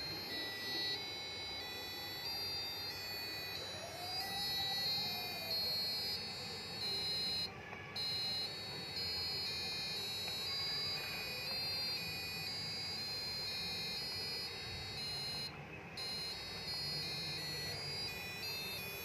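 Electronic buzzer, driven by a C++ program, playing a tune of short beeping notes that step from pitch to pitch. The tune breaks off briefly about seven and a half seconds in and again near fifteen and a half seconds, then starts over.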